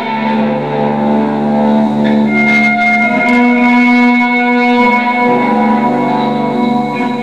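Electric guitar through a small Crate amp, playing long sustained notes that change pitch every second or two.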